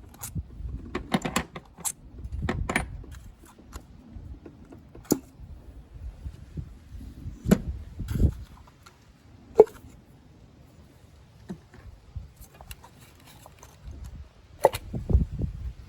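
Ignition coils being pulled up out of the spark plug wells by hand and set down, making scattered plastic clicks, small metallic clinks and a few heavier knocks. The engine is off.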